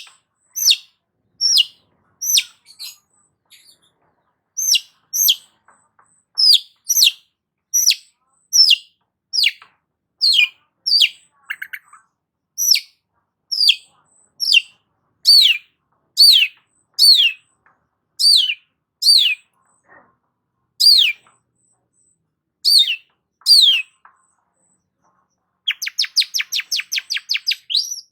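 Long-tailed shrike (cendet) singing: a long series of loud, sharp whistled notes, each a quick downward sweep, about two a second with a few short pauses. Near the end it breaks into a fast rattling trill of many short notes.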